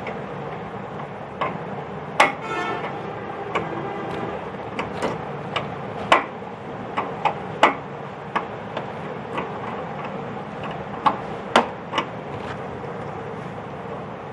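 Scattered metal clicks and clinks of an 8 mm spanner working loose a brass burner jet on a gas stove's steel frame, with one ringing clink about two seconds in, over a steady background hum.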